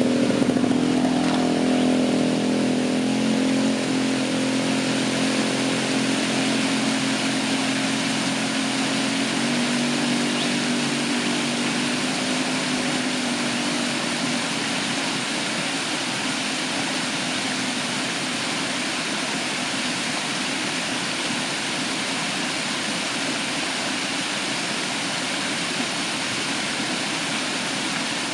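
Waterfall rushing steadily, with a motor vehicle's engine hum under it that fades away over the first fifteen seconds or so.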